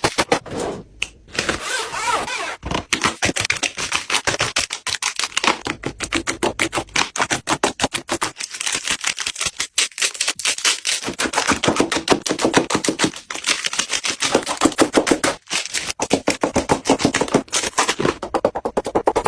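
Small beads pouring and clattering into a container: a fast, dense run of clicks with a brief break about a second in.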